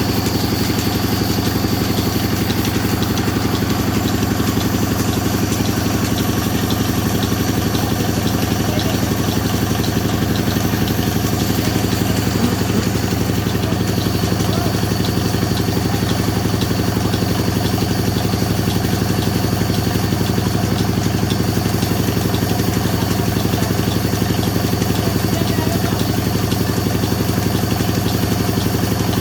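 A sawmill machine running steadily, with a constant low hum and no clear change in load.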